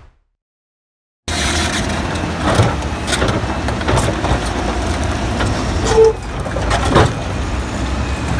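Caterpillar D8R bulldozer's diesel engine running with a steady low rumble, cutting in abruptly about a second in, with several sharp metallic clanks.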